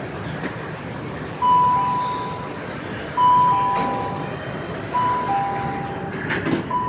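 Metro carriage's electronic two-tone chime, a higher note followed by a lower one, sounding four times about two seconds apart over the steady running hum of the carriage.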